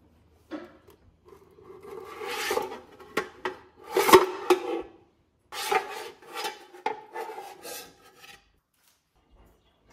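The Philips Airfryer XXL's pan and its removable plastic insert being handled and wiped with a cloth: rubbing and scraping, with a few sharp knocks, the loudest about four seconds in.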